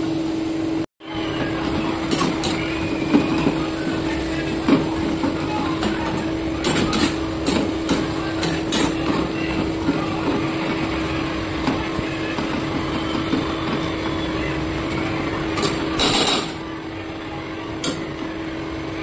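A steel spatula scraping and knocking against a steel kadai as onion and spice masala is stirred and fried in oil on a low flame. Irregular clinks and scrapes over a steady hum.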